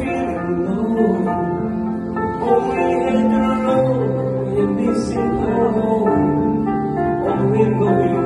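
A singer performing into a microphone over guitar-led backing music, played loud through a PA system.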